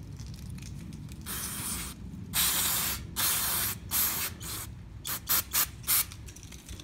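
Aerosol carburetor cleaner sprayed through its extension straw onto a plastic carburetor float in about eight short hissing bursts, the last few very quick and brief.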